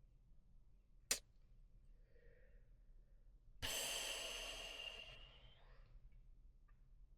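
A sharp click about a second in, then a long heavy sigh, a breathy exhale into the microphone that starts suddenly a few seconds in and fades over about two seconds.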